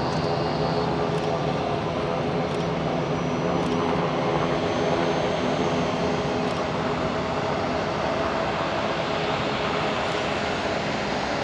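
Boeing 787-9 Dreamliner's twin turbofan engines running at low taxi thrust as the airliner taxis and turns onto the runway. A steady jet rumble with a hum of several steady tones and a faint high whine on top.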